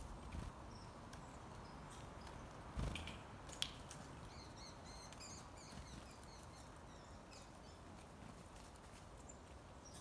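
Quiet outdoor background with a few soft thumps and a sharp click about three seconds in, and faint high chirps of small birds around the middle.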